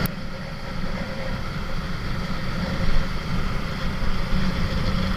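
Motorcycle riding at steady speed: wind buffeting the camera microphone over the running of the engine and the tyres on the road.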